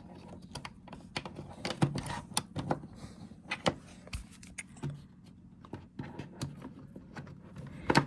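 Scattered irregular clicks and taps of hands handling a laptop and its keys, over a faint low steady hum.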